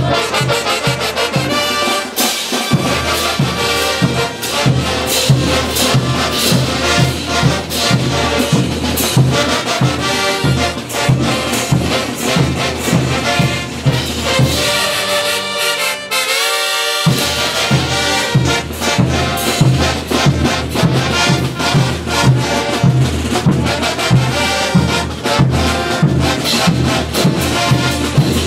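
Brass band playing morenada music: trumpets and trombones over a steady beat of bass drum and low brass. Midway the low drums and bass stop for about two seconds, leaving the higher brass alone, then come back in.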